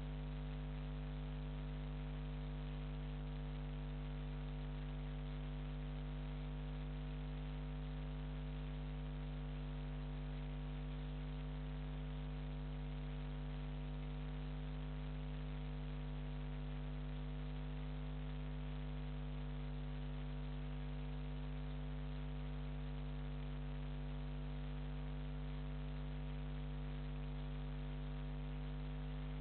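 Steady electrical hum with a stack of overtones, over a constant even hiss, unchanging throughout.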